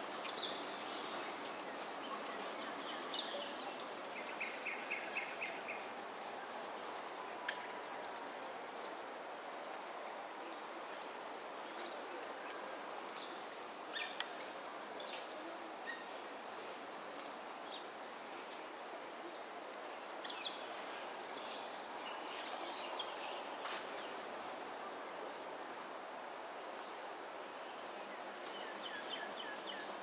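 Steady insect chorus holding several constant high-pitched tones over a continuous wash of background noise. A short rapid series of chirps comes about four to five seconds in, and brief bird calls and clicks are scattered through the rest.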